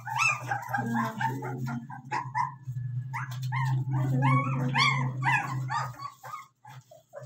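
A litter of Caucasian shepherd (volkodav) puppies whining and yipping in quick, overlapping high-pitched cries as they crowd a milk bottle at feeding, over a steady low hum; the cries die away about six seconds in.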